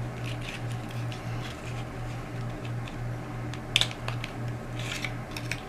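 Small clicks and rustles of a mascara package being opened and handled, with a few sharper clicks, the loudest nearly four seconds in. A steady low hum runs underneath.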